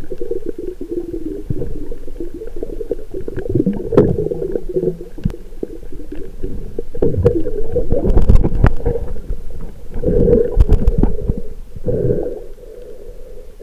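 Muffled underwater rumbling and gurgling of water moving around an action camera held underwater, with a few sharp knocks on the camera.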